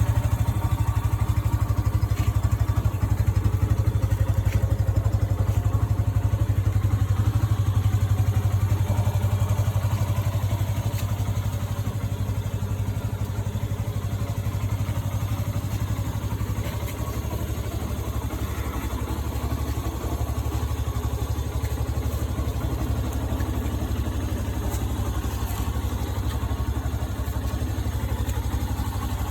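Yamaha FZ-S V3's single-cylinder engine idling steadily, heard close up; it drops a little in loudness about ten seconds in.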